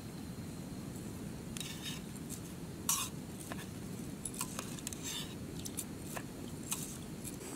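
A long-handled metal spoon stirs rice in a small metal camping pot, making a loose string of light clinks and scrapes against the pot. Underneath runs the steady hiss of the camping stove's burner.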